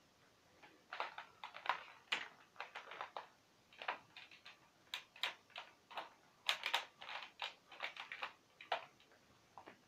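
A run of irregular light clicks and taps, several a second, that stops about a second before the end.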